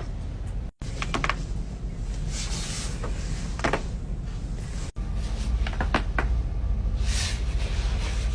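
Back cracking: spinal joints giving sharp pops, a pair about a second in, a single one midway and a quick run of three around six seconds in, over a low steady hum.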